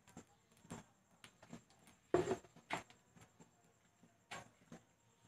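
Scattered soft taps and clicks at a simmering pot of soup as kangkong (water spinach) stalks are put in, with the loudest about two seconds in.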